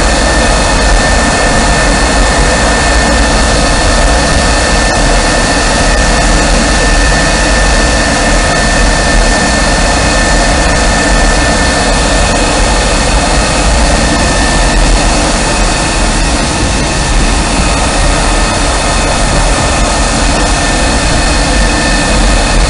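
Jet fighter engines running steadily, a loud even rush of noise with a high whine held at one pitch throughout.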